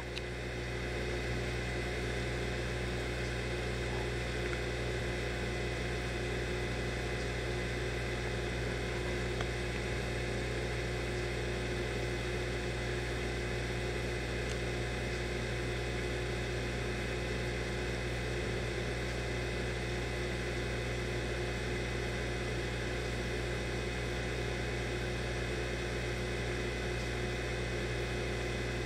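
Steady hum of reef aquarium equipment such as circulation pumps, with a few constant tones over an even hiss and no change throughout.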